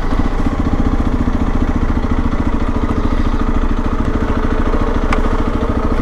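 Motorcycle engine idling steadily, with a brief click about five seconds in.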